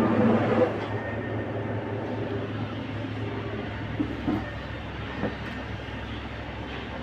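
Steady low mechanical hum with a few short knocks partway through, like running machinery or a vehicle interior.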